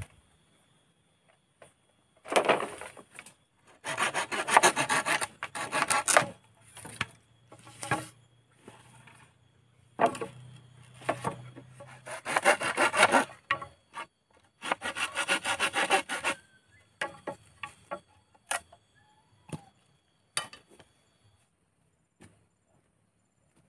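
Bamboo poles being sawn by hand: several bouts of quick sawing strokes, each lasting a second or two, followed by scattered light knocks and clicks.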